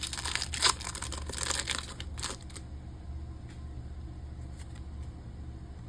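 Foil Pokémon card booster-pack wrapper crinkling and tearing open for the first two seconds or so, then only a few faint rustles over a low steady hum.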